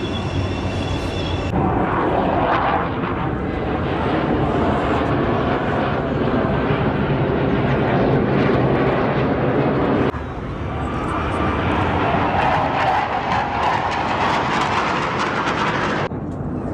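Loud jet engine noise of military aircraft flying past, a dense rushing sound that swells and fades, breaking off abruptly and changing about a second and a half in and again about ten seconds in.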